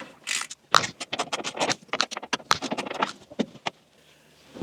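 Ratcheting screwdriver clicking in quick, uneven runs, with some scraping, as an old Phillips screw is turned out of a steel dashboard. The clicking starts under a second in and stops about a second before the end.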